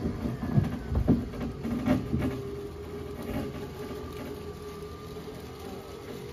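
Footsteps and handling noise crunching through thick dry fallen leaves for the first two seconds or so, over a small motor humming steadily.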